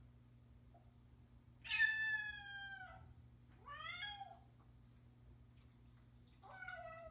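Bengal kitten meowing three times. The first, about a second and a half in, is long and the loudest, falling in pitch. A shorter one follows about a second later, and a third begins near the end.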